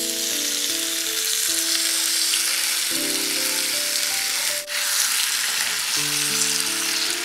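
Marinated chicken gizzards frying in hot oil with onion and spice masala in a pan: a steady, loud sizzle that briefly dips about halfway through.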